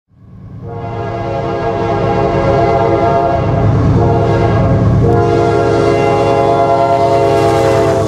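Diesel locomotive air horn sounding several long blasts with brief breaks between them, swelling in over the first couple of seconds, over the low rumble of a passing train.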